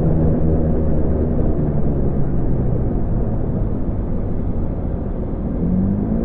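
Honda Gyro scooter engine running under way, with a steady low drone and wind noise on the microphone; near the end the engine pitch rises.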